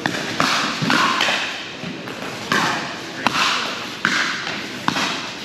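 Pickleball rally: paddles hitting the hard plastic ball, a sharp pop about once a second, each trailed by a brief echo.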